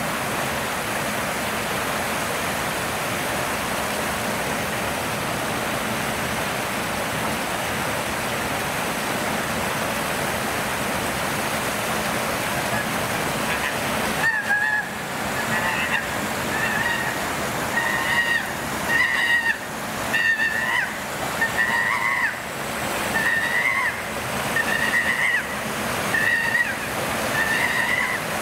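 Steady rushing noise, then from about halfway a series of loud, high screams from chimpanzees, about one a second, the excited cries of an enclosure group while a male charges about.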